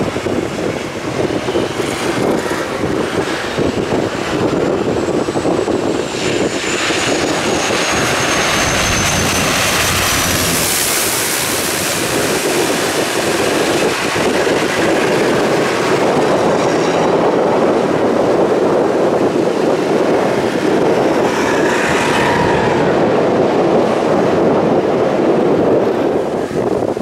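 Twin turboprop engines of a de Havilland Canada DHC-6 Twin Otter running on approach and landing, with a high whine that glides down in pitch as the aircraft passes. Heavy wind buffeting on the microphone runs throughout.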